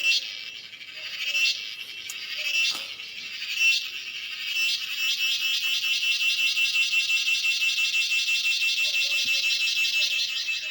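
Cicada calling: short buzzing phrases about once a second, then from about five seconds in a continuous, rapidly pulsing high-pitched buzz.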